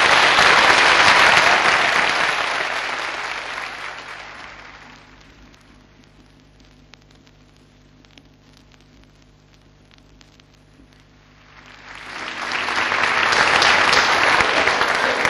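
Audience applause fading out over several seconds. Then comes a quiet stretch of faint low hum with scattered small clicks, and about twelve seconds in the applause fades back up.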